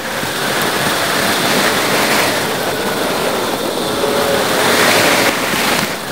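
Continuous rushing of wind on the camera microphone mixed with bicycle tyre and road noise on a paved path, played back eight times faster than normal.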